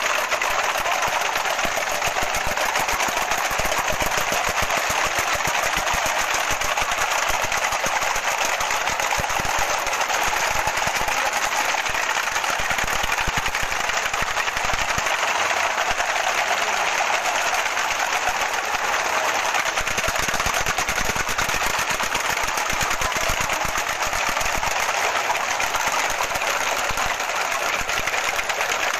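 Many pataraka, the handheld ratchet noisemakers of the Pataraka tradition, being swung and cranked at once in a loud, continuous, rapid clattering rattle.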